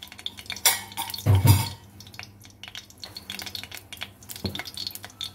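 Kitchen clatter of a metal kadai and utensils knocking and scraping, with the loudest knock, a dull thud, about a second and a half in, and another knock near the end.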